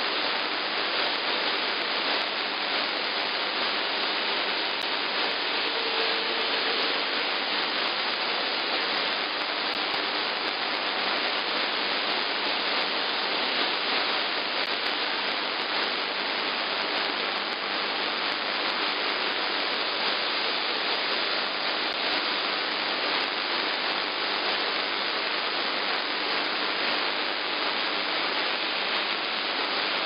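Steady hiss of static from an AM receiver tuned to CB channel 11 (27.085 MHz), with no voice coming through; a faint short whistle about six seconds in.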